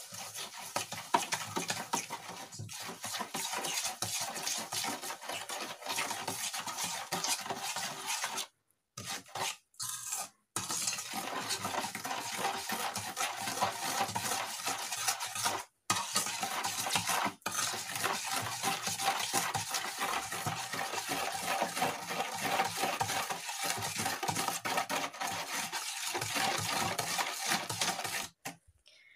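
Spoon stirring and scraping quickly around a stainless steel bowl, mixing a runny batter base of milk and sugar as the sugar is dissolved. The scraping is continuous, with a few short breaks.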